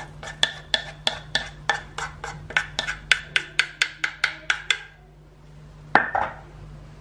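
A utensil scraping the last of a thick caramel cream out of a metal saucepan in quick repeated strokes, about three a second for nearly five seconds, the pan ringing lightly with each stroke. A single louder clank follows near the end.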